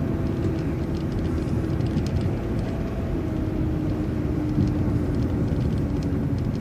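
City transit bus driving along, its engine and drivetrain running with a low rumble and a steady whine that slowly drops in pitch.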